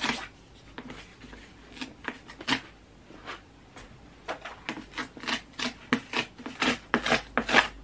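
Cardboard book mailer being handled and torn open: scuffing and rubbing of the card, then a dense run of quick rasping rips in the second half as the tear strip is pulled.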